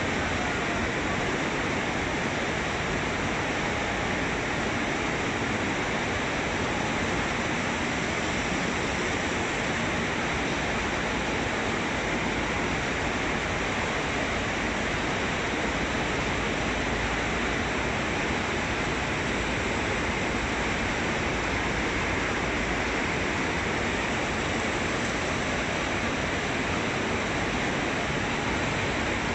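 Steady, even machinery noise of a bank of graphite-ore flotation cells running, their motors turning and the slurry churning.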